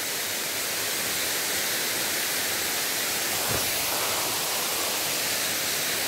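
Steady rushing of a nearby waterfall pouring into its pool, with one faint low bump about three and a half seconds in.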